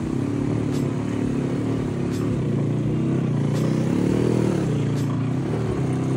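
ATV (quad) engine running under load as it ploughs through deep muddy water, its pitch rising to a rev about four seconds in and then easing off.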